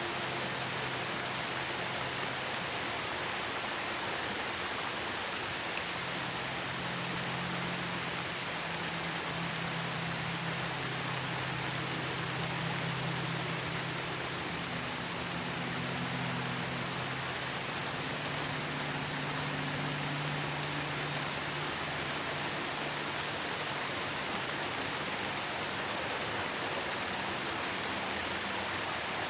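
Steady rain noise, with soft, low held tones of ambient music underneath that move between a few pitches.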